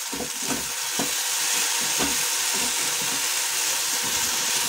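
Sabudana khichdi with peanuts and potatoes sizzling in a non-stick frying pan, stirred and scraped with a spatula. A steady hiss of frying runs under irregular soft strokes of the spatula against the pan.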